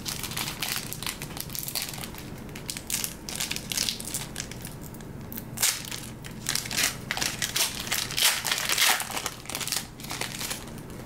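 Plastic-foil wrapper of a trading card pack being torn open and crumpled: a run of irregular crinkles and crackles, loudest about eight to nine seconds in.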